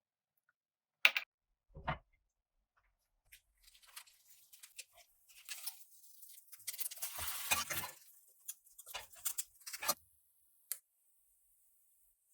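Handling sounds: a sharp click, a thud, then a run of small clicks, taps and rustling, with one last click near the end.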